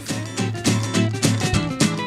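Background music with guitar, many quick plucked notes.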